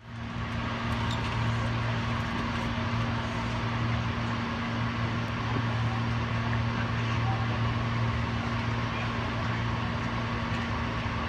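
Steady low electrical hum from a Hankyu electric train's on-board equipment while it stands stopped at a station platform, fading up quickly in the first moment.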